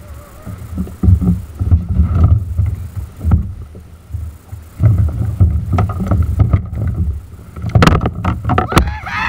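Wind buffeting an open-water kayak camera's microphone in uneven low gusts, with a few sharp knocks near the end.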